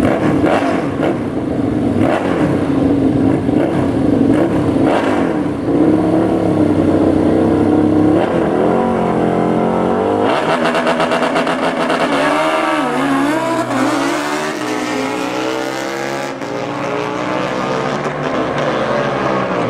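Drag-racing motorcycle engines at the start line. A Suzuki Hayabusa's inline-four is held at high revs with short sharp blips, then from about halfway an engine revs up and down repeatedly over a steady idle.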